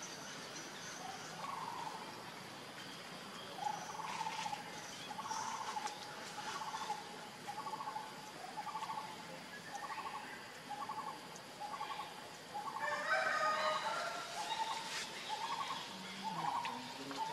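A steady series of short trilled animal calls, more than one a second, with a louder, higher, jumbled flurry of calls about three-quarters of the way through.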